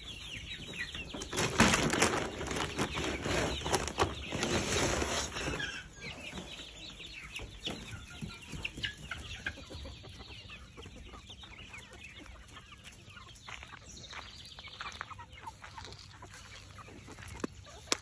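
A flock of chickens clucking, with a louder stretch of scuffling, rustling noise from about a second and a half in to about six seconds, then quieter clucks and light scratchy ticks.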